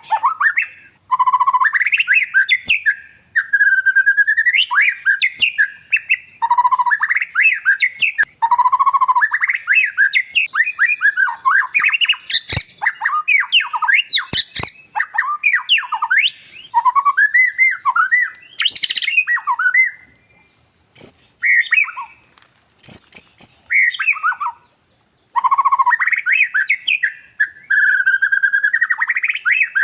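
Oriental magpie-robin (kacer) singing a long, varied song of loud whistles, slurred glides and rapid trills, pausing briefly twice about two-thirds of the way through. A few sharp clicks sound in the middle.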